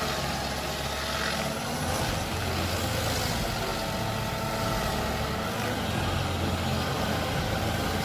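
A large diesel machine engine running steadily under load: a continuous low rumble with a wavering whine above it.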